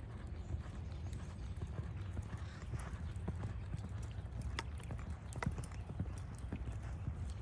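Hoofbeats of a sorrel quarter horse loping on the sand footing of an arena, a run of short, uneven knocks over a steady low rumble.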